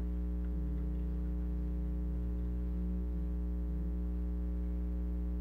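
Steady low electrical mains hum. A faint low wavering tone sits over it from about half a second in until about four seconds in.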